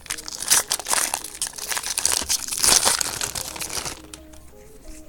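Foil wrapper of a baseball card pack being torn open and crinkled by hand for about four seconds, then much quieter, with faint background music under it.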